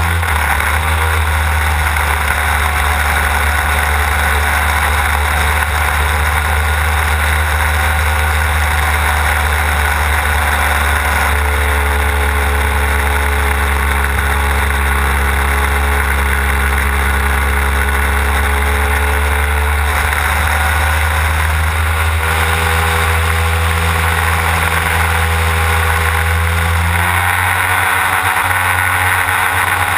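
Desert Aircraft DA-150 twin-cylinder two-stroke petrol engine of a large-scale RC aerobatic plane running steadily under power in flight, heard close up from the airframe, with propeller and wind noise. Its note wavers slightly in the middle and shifts lower near the end.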